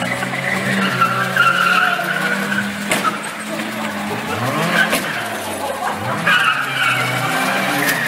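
Banger-racing cars with their engines running and revving and tyres skidding, with a couple of sharp knocks as the cars bump into each other.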